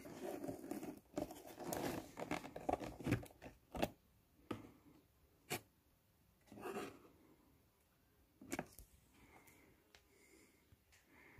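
Faint rustling and crinkling of a new laptop's packaging being handled for the first few seconds, then a few scattered light taps and clicks.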